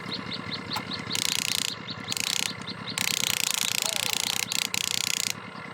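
Small electric motors and plastic gearboxes of an RC construction machine whirring in three bursts, over a steady fast mechanical ticking of about six ticks a second.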